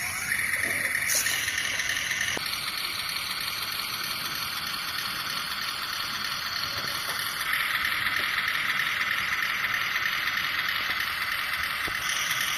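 Remote-control rock crawler truck's electric motor and gearbox whirring as it drives, with the whir changing pitch and growing stronger a couple of times as the throttle changes.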